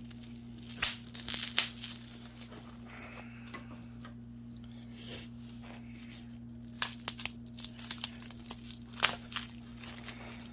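Plastic bubble wrap around a small glass bottle crinkling and crackling in the hands, in short clusters about a second in and again through the last few seconds, with a quieter stretch in between.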